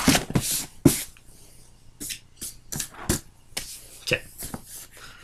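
Cardboard box and packaging being handled: an irregular run of knocks, taps and rustles as items are lifted out of an opened cardboard box.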